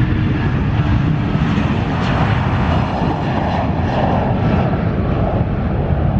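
Jet airliner engines: a loud, steady rumble and roar.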